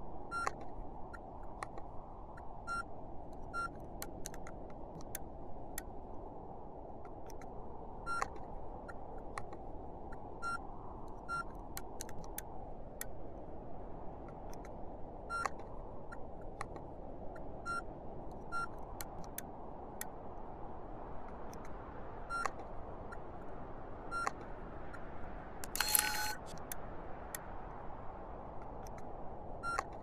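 Background sound-effect track: a steady low hiss with frequent sharp clicks, some carrying a short electronic beep, and one longer, louder beep about 26 seconds in.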